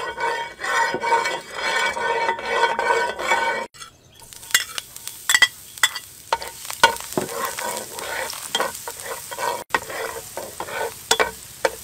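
A metal spatula scrapes around a nonstick frying pan of hot oil. About four seconds in, minced garlic hits the oil and sizzles, with many sharp crackles as it is stirred.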